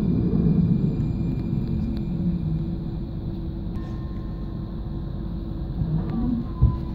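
Alstom RegioCitadis tram running along the track with a steady low rumble. A thin whine comes in about halfway and slides slightly lower in pitch near the end, and there is a single knock shortly before the end.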